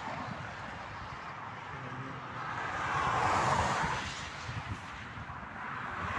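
Motorway traffic: a vehicle passing by, its tyre and wind noise swelling to a peak about three to four seconds in and then fading.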